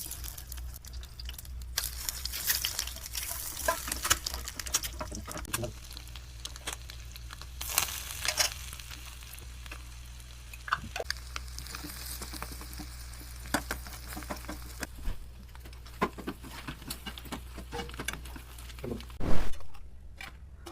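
Egg frying in a pan: a steady sizzle with many short scrapes and taps of a utensil, and a louder knock about 19 seconds in.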